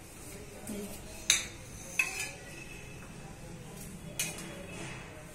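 Stainless-steel tumblers and bowls knocking against a steel plate: three sharp metallic clinks with a brief ring, the loudest about a second in.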